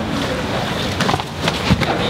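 Training-room noise during jiu-jitsu sparring: a steady rushing din with a few sharp thumps and slaps, the clearest near the end.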